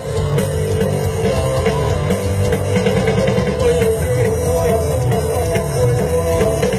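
Rock music with a steady drum beat, playing loudly and continuously.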